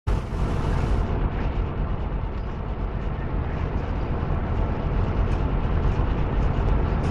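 Loud, steady rumble of road traffic, heavy in the low end, starting abruptly.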